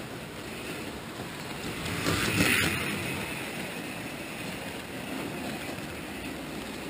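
HO scale model freight train running along the track, heard from on board as a steady rolling rumble of wheels and motor. About two seconds in, the sound swells louder for a moment before settling back.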